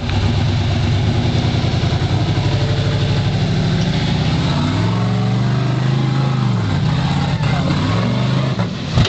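Rock crawler buggy's engine held on the rev limiter under load on a steep climb, with a fast pulsing note. The note is steady at first, then rises and falls in pitch through the second half. The rig's fuel pressure regulator is giving trouble.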